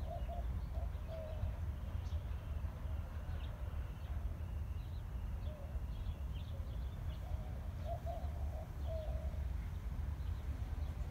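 Birds calling: doves cooing in repeated low warbling phrases, with many short high chirps from small birds, over a steady low rumble.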